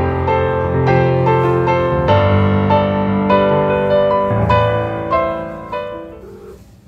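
Background piano music, a gentle melody of struck notes, fading out over the last two seconds.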